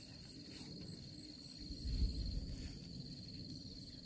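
Insects chirring steadily in a high, even band, with a brief low rumble about two seconds in.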